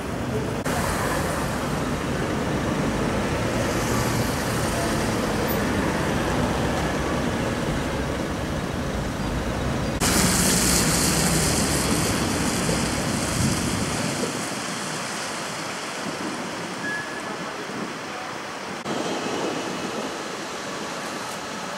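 City street traffic noise: a steady hiss and rumble of cars and buses on the road. About ten seconds in it turns abruptly louder and brighter, and from about fourteen seconds on most of the low rumble drops away.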